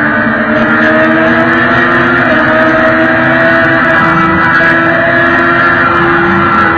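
Superbike engine running hard at high revs, its note climbing slowly as the bike accelerates, under loud wind rush on the microphone at highway speed.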